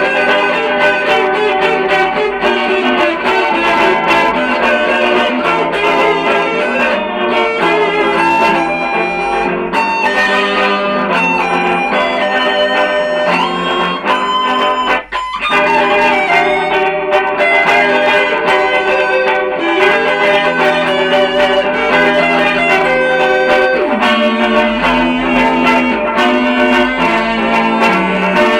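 SG electric guitar playing over layered looped guitar parts, many sustained notes stacked together, with a brief drop-out about halfway through.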